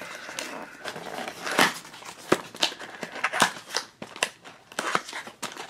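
A small cardboard blind box being opened by hand: its flaps are pulled open and the packing inside is handled, giving scattered sharp clicks and crinkles of cardboard and paper.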